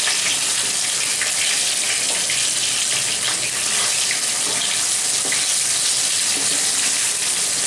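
Hilsa fish steaks sizzling steadily as they fry in mustard oil in a kadai, with the wooden spatula working in the pan as the lightly fried pieces are lifted out.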